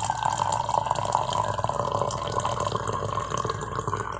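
Coffee poured from a thermos flask into a cup: a steady stream of liquid filling the cup.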